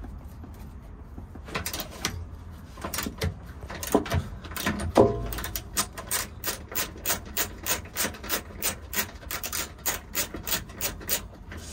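Ratchet wrench clicking as it tightens the nut on a strut tower bar mount. A few uneven clicks and a metallic clank about five seconds in, then steady strokes at about three clicks a second.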